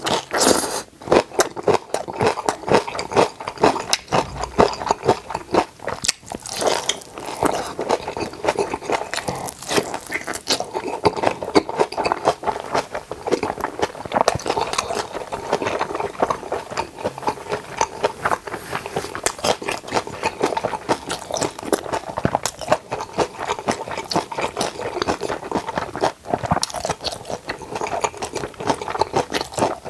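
Close-miked chewing and crunching of kimchi: a dense, unbroken run of crisp crackles.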